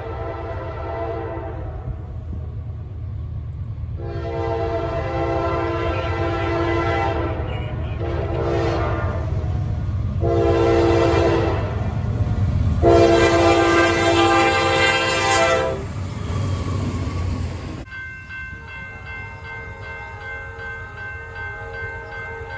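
Locomotive multi-chime air horn sounding a series of blasts, several long and one short, over the low rumble of the train. About eighteen seconds in, the rumble cuts off and a quieter, steady horn chord is heard instead.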